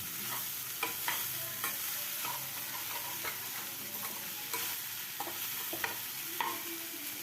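Vegetable fried rice sizzling in a kadai while a spatula stirs it, with scattered short clicks and scrapes of the spatula against the pan over a steady frying hiss.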